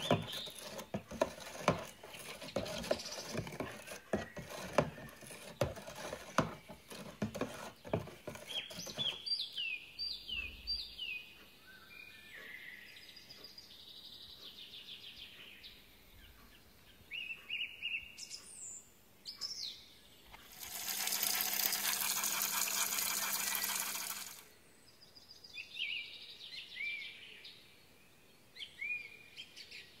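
A plastic measuring scoop stirs powder into a plastic tub of water, making quick clicks, scrapes and splashes for about nine seconds. Birds then chirp in repeated short falling notes. Partway through, a steady hiss with a low hum lasts about four seconds and is the loudest sound.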